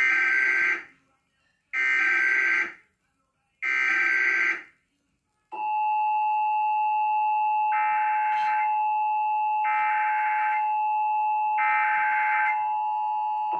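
Emergency Alert System test signal: three harsh one-second bursts of the digital SAME header, then about five seconds in the steady two-tone EAS attention signal (853 and 960 Hz) starts and holds, with three more similar data bursts sounding over it.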